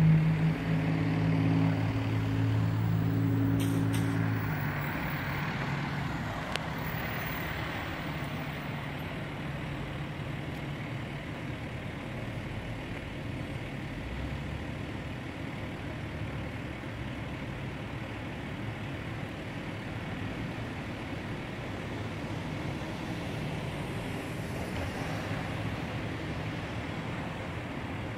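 Road traffic going by: a passing vehicle's engine is loudest at the start and fades away within about five seconds, leaving a steady hum of traffic.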